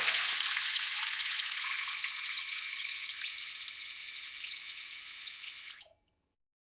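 Water running in a steady splashing stream, then stopping abruptly near the end.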